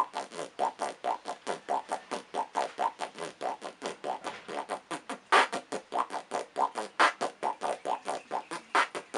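Beatboxing pattern built on an inward lip roll: the lips vibrate on the in-breath in a fast, even pulse of about six strokes a second. Three louder, sharper strokes cut in during the second half.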